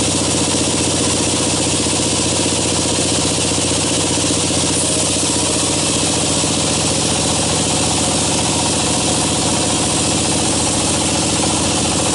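Band sawmill running steadily: a constant machine drone with fine, even pulsing and a hiss over it as the band saw blade cuts along a timber beam.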